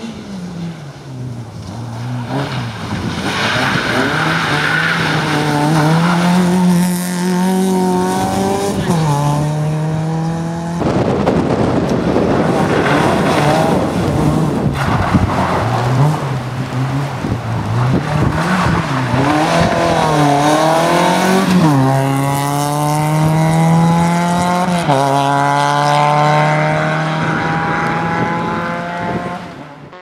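Fiat Cinquecento rally car engines accelerating hard through the gears on loose gravel stages, the pitch climbing and dropping back at each upshift. There are several separate passes, with stretches of gravel and tyre noise between them.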